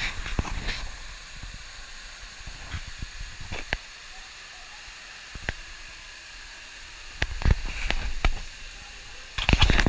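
Steady rushing hiss of a waterfall, with scattered clicks and knocks on the camera, and louder splashing with low thumps near the end as the camera meets the water.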